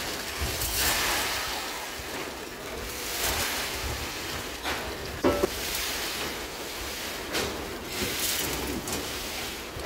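Concrete pump pour: wet concrete pushed out of the delivery pipe and splattering onto the rebar deck, over a steady noisy rush that rises and falls unevenly. A short sharp sound stands out about five seconds in.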